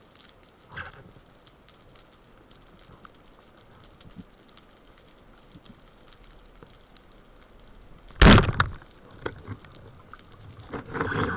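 Underwater speargun shot about eight seconds in: one sharp, loud crack as the rubber bands release and drive the shaft. A stretch of knocking and scuffling follows near the end.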